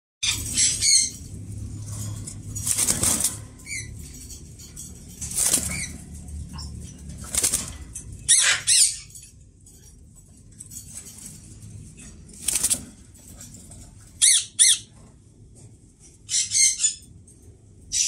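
Indian ringneck parakeets giving short, harsh screeching calls, about eight of them spread out, some in quick pairs, over a faint low hum.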